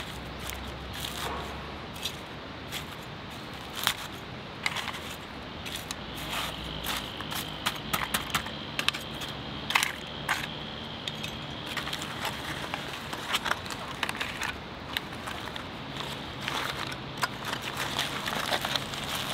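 A small metal tool scraping and poking through spent charcoal and ash on aluminium foil: irregular clicks, scrapes and rattles of charcoal lumps, with the foil crinkling more densely near the end as it is gathered up.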